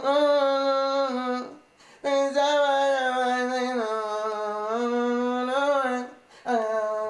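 Sung or hummed vocal melody in long held notes. One note lasts about a second and a half; after a short break comes a longer line of about four seconds that steps down in pitch and back up.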